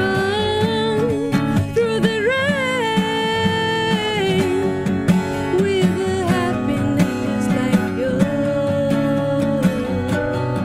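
A woman singing held, wavering notes, accompanied by a strummed acoustic guitar.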